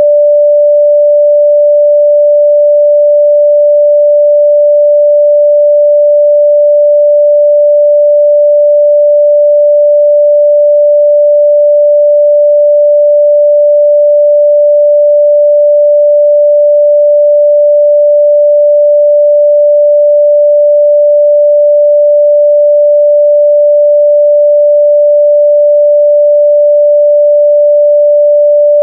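A pure 588 Hz sine-wave test tone, held steady and loud at one pitch.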